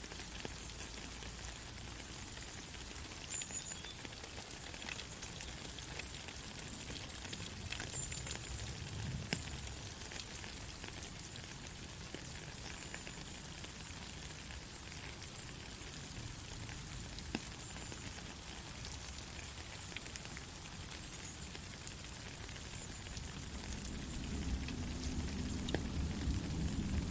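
Steady rain falling, an even hiss with scattered sharp drop ticks. A low rumble builds in near the end.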